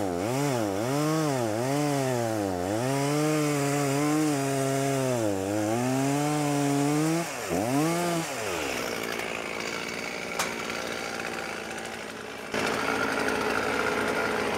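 Large two-stroke chainsaw cutting under load, its pitch dipping and recovering every second or so, then revving once and dropping away a little past the middle. Then a compact tractor's diesel engine runs, getting louder near the end as its grapple lifts the cut logs.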